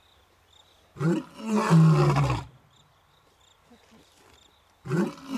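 Male lion roaring at close range: one full roar about a second in, deep and falling in pitch, lasting about a second and a half, with the next roar of the bout starting near the end. It is a territorial call announcing the males' hold on the area.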